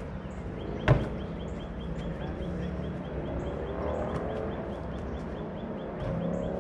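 One sharp knock of a basketball about a second in, the loudest moment, against a steady outdoor background with a faint high chirp repeating about four times a second.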